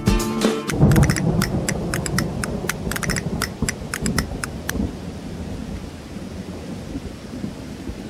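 Thunderstorm: a low rumble of thunder with sharp crackles over the first few seconds, fading into a steady hiss of rain. A final music note is cut off right at the start.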